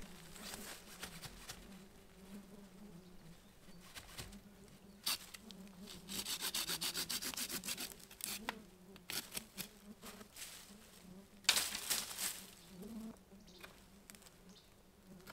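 Tent fabric rustling and rubbing as it is handled and laid out on leaf litter, with a run of quick rasps in the middle and a sharper rustle later on. Flies or other insects buzz steadily throughout.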